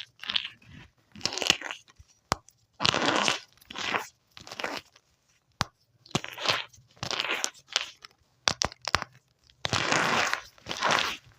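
Soft crunchy material being crushed in a series of short crackly crunches, about one every second, with quiet gaps and a few sharp clicks between them.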